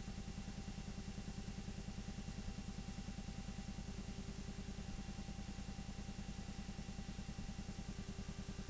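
8mm film projector running: a fast, even mechanical clatter with a faint steady hum.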